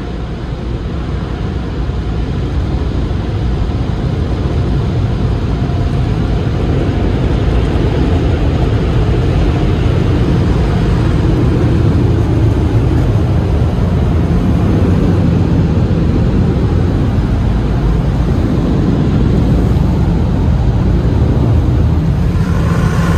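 Car wash blower dryers running, a steady heavy rush of air heard from inside the car's cabin, growing louder over the first several seconds and then holding steady.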